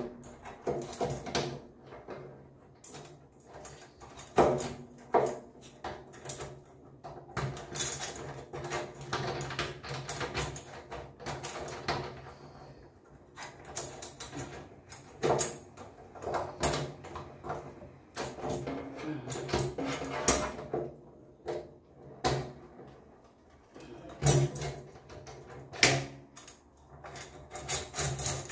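Kitchen sink drain fitting being twisted and tightened by hand: irregular clicks, knocks and scrapes of plastic and metal parts, over a steady low hum.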